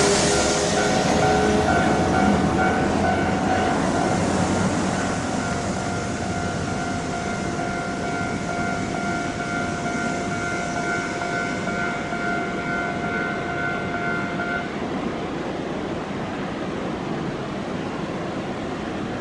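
A large vehicle passing the railway level crossing and slowly fading away as a steady rumble. Several steady ringing tones run over it and cut off suddenly about fifteen seconds in.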